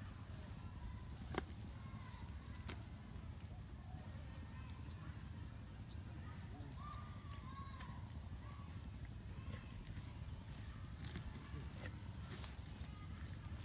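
Steady high-pitched insect chorus, a constant even buzz, over a low background rumble, with a couple of faint clicks in the first few seconds.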